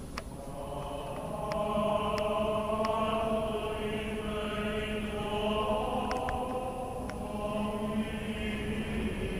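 Voices chanting in long held notes, swelling in about a second in and holding on, with a few sharp clicks over them.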